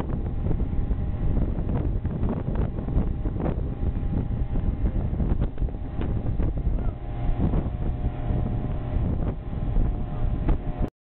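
Wind buffeting the microphone on a ship's deck, a dense low rumble with scattered knocks and clatter. It cuts off suddenly just before the end.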